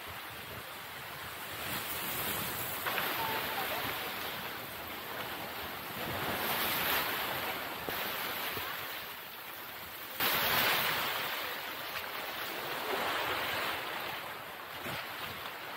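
Sea surf washing in over a rocky shore, rising and falling in surges, with a louder wave coming in suddenly about ten seconds in.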